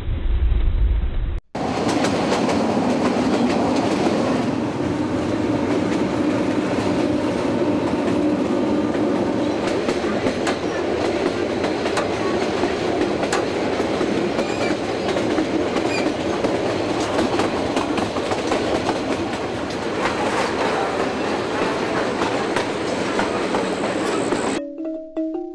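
Passenger train running along the track, heard from the side of a carriage: a steady rolling rumble with the clickety-clack of wheels over the rail joints. For the first second and a half it is heard muffled from inside a sleeper compartment. Near the end it gives way to marimba-like music.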